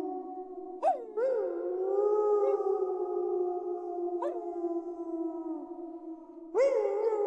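A pack of wolves howling in chorus: several long overlapping howls, each rising sharply into a held note that slowly sags in pitch. New howls come in about a second in, again around four seconds in, and a loud one near the end.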